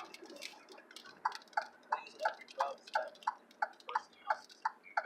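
Turn-signal indicator ticking inside an Alfa Romeo Giulia's cabin, a steady even beat of about three ticks a second starting about a second in.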